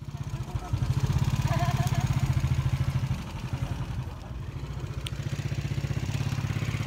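Small vehicle engine running with a fast, even throb. It eases off a little about three seconds in and picks up again near the end.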